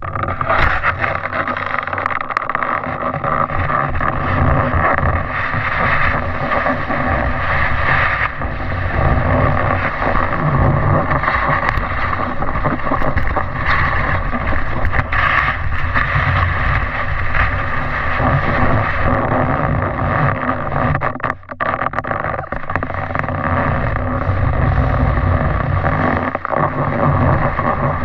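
Snowboard sliding and scraping over packed snow, heard through a camera mounted on the board, with wind rumbling on the microphone. Steady and loud, with a brief drop about 21 seconds in.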